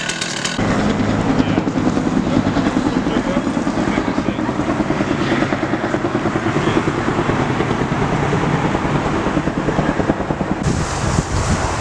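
Helicopter flying over the fire, its rotor beating in a fast, steady pulse; a chainsaw cuts off about half a second in.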